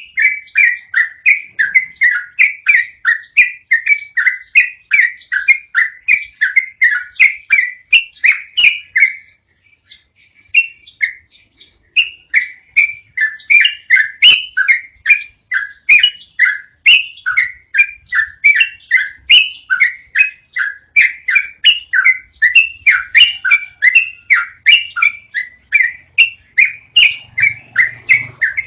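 Yellow-vented bulbul (trucukan) singing a long rolling run of quick, bubbly notes, about three a second. The song breaks off for about two seconds about a third of the way through, then carries on.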